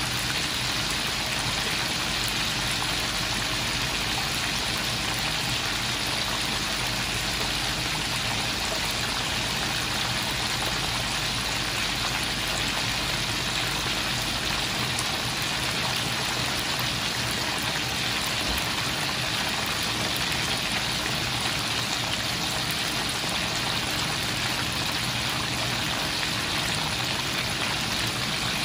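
Hot oil sizzling and bubbling steadily in a wok as coated pieces of lobster and crab deep-fry.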